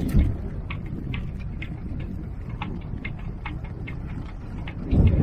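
Low rumble of wind on the microphone aboard a small sailboat, with irregular light clicks and ticks, and a low thump just after the start and again near the end.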